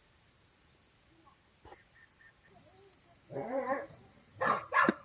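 Crickets chirring steadily, with a dog's short call about three and a half seconds in and a louder, harsher dog sound near the end, from the Tibetan mastiff (Bhote Kukur) guardian dogs in the compound.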